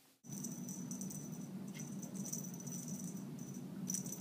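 Feathered wand cat toy being swung and batted about, a light high rattle and flicker of clicks over a steady low hum, starting abruptly a moment in.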